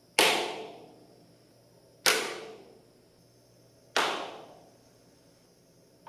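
Spray foam insulation on a corrugated metal Quonset hut roof popping and cracking three times, about two seconds apart, each sharp crack dying away over about half a second: the sound of the foam contracting and pulling away from the metal, leaving a gap.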